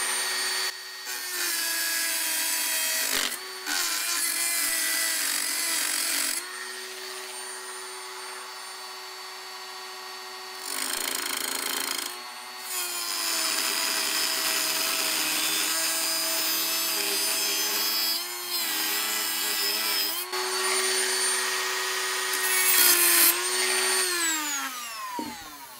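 Dremel rotary tool running at high speed with a #456 reinforced metal cut-off wheel, cutting metal: a steady high whine over a grinding hiss that eases and comes back a few times. The motor winds down near the end.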